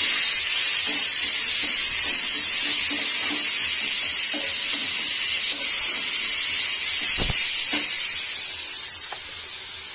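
Sliced onions sizzling in hot oil in a wok, stirred with a metal spatula. Two sharp knocks come about seven seconds in, and after them the sizzle eases a little.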